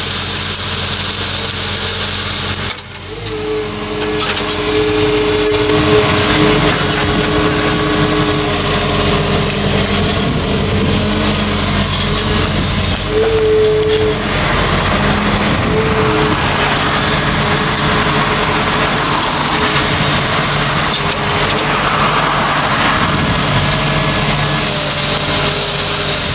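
Excavator engine running steadily while the hydraulic-motor-driven engcon SWD rotating brush sweeps loose soil, making a loud hiss for the first few seconds and again near the end. Between these the machine runs with a steady whine, which rises briefly about halfway through.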